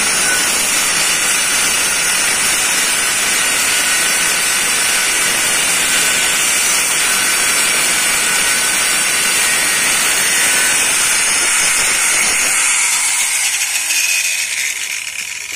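Electric angle grinder grinding metal: a loud, steady grinding hiss with a high whine. About twelve and a half seconds in, the grinding stops and the grinder spins down, fading away.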